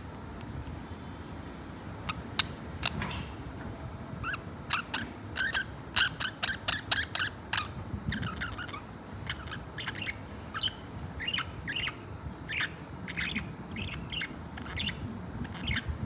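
Budgerigars chirping and warbling: a quick run of short chirps that starts about two seconds in and carries on, over a steady low background hum.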